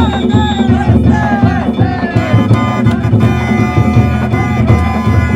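Danjiri float music (narimono): a taiko drum beating steadily and densely, with held, bending notes from a Japanese transverse flute above it.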